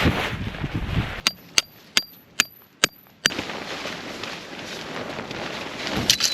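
Strong wind buffeting the microphone, dropping away for about two seconds in which six sharp clicks ring out, then gusting again, with another quick cluster of clicks near the end.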